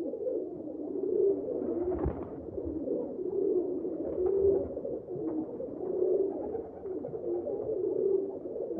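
Pigeons cooing: a continuous run of low, overlapping coos, with a brief knock about two seconds in.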